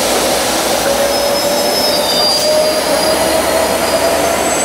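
Diesel train running loud and steady directly below, a heavy rush with a whine that climbs slowly in pitch.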